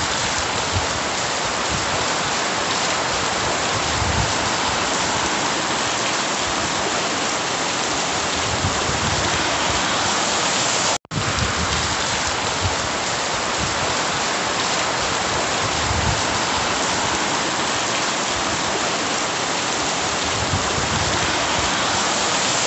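Heavy rain pouring down, a dense steady hiss that cuts out for an instant about halfway through.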